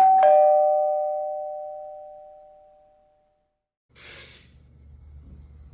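Two-note ding-dong doorbell chime: a higher note, then a lower one a quarter second later, both ringing out and fading over about three seconds. After a short silence, a brief rustle and a low steady room hum start about four seconds in.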